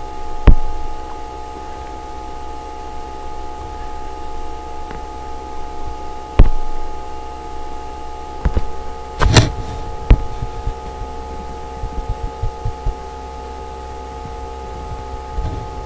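Steady background hum made of several held tones, with a few sharp clicks scattered through it, the loudest about six seconds in, and a brief louder sound a little after nine seconds.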